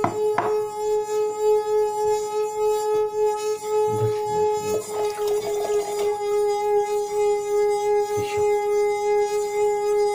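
Glass singing: a wet finger circling the rim of a glass partly filled with water draws out one steady, sustained ringing tone.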